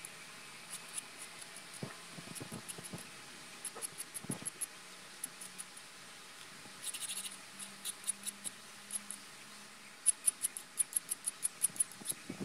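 Hand deburring tool and file scraping burrs and sharp edges off a Chevy 3.1 V6's cast-iron engine block, which keeps the edges from shaving the bearings. The scrapes are short and light, scattered at first, with a longer scrape about halfway through, then a quick regular run of about four strokes a second near the end.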